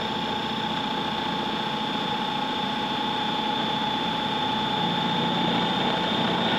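Food processor motor running at high speed with a steady whine, its blade churning flour and egg into a dry, crumbly pasta dough; it grows slightly louder near the end.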